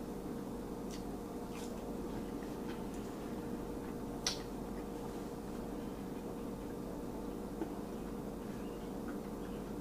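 Chewing French fries with closed-mouth eating sounds and a few short mouth clicks, the sharpest about four seconds in, over a steady low hum.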